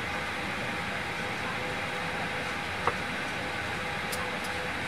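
Steady cabin noise inside a Boeing 737-800 during pushback: an even rush of ventilation air with a faint steady hum, and one short click about three seconds in.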